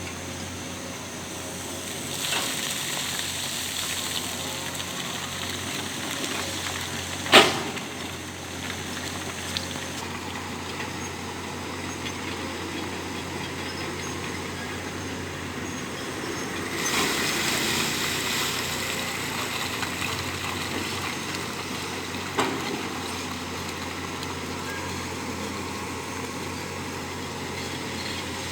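Heavy construction machinery running steadily, with a sharp metallic knock about seven seconds in and a smaller one later.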